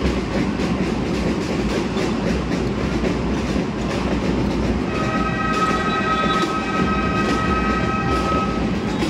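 Steady crowd din in a basketball arena; about five seconds in, the arena buzzer sounds one steady high horn for nearly four seconds: the final buzzer ending the game.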